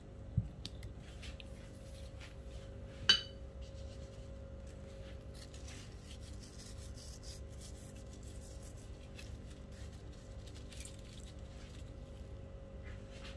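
Metal fork scraping sauce over a pastry crust in a pan, with one sharp ringing clink about three seconds in, then faint light ticks and rustles over a steady low hum.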